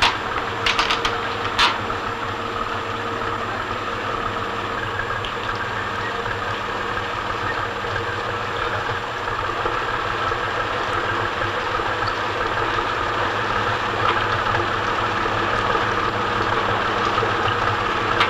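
Fishing trawler's engine running steadily at low speed while the boat manoeuvres in harbour, growing slightly louder toward the end. A few sharp clicks come in the first two seconds.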